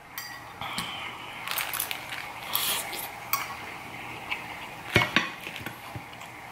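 A metal fork scraping and clinking against a plate while stirring through macaroni and cheese, with scattered sharp clinks, the clearest about five seconds in.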